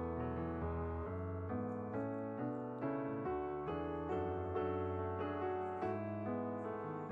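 Background piano music, with notes changing about twice a second.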